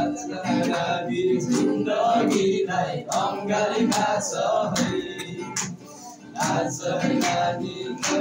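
Two boys' voices singing together to a strummed acoustic guitar, with a short lull in the singing about six seconds in.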